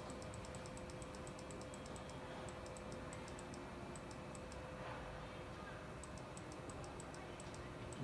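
Light, rapid clicking of a computer keyboard, several clicks a second, over a steady faint hum.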